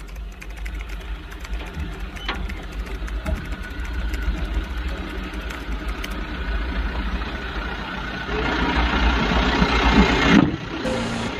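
Diesel engine of a Colt Diesel garbage truck running at low speed, a steady low rumble with light ticking. It grows louder from about eight seconds in as the truck drives off.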